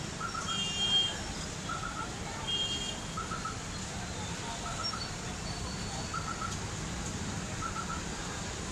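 Street traffic at a flooded junction: a steady low rumble of motorbike and truck engines, with short vehicle horn toots within the first three seconds. A small triple chirp repeats about every second and a half.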